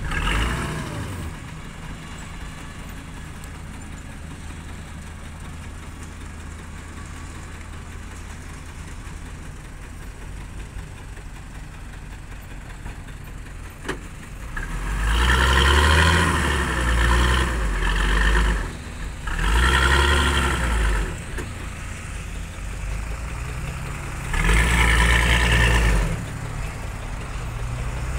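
Nissan Condor dump truck's engine idling steadily, then revved hard three times in the second half, each surge a few seconds long, as the truck tries to pull its wheels out of slippery wet mud.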